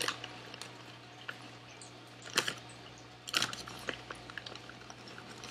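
Potato chip bag crinkling as a hand rummages inside it for a chip. A few sharp crackles come about two and a half and three and a half seconds in, with faint rustles between.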